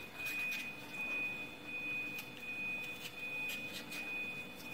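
A steady high-pitched tone, broken by short gaps now and then, over a few faint crisp snicks of a small knife cutting through a red bell pepper held in the hand.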